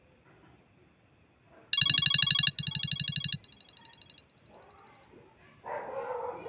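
iPhone 7 Plus alert tone playing: a fast electronic trill of beeps begins about two seconds in and sounds three times in a row, each fainter than the last, dying away about four seconds in. Near the end a dog barks.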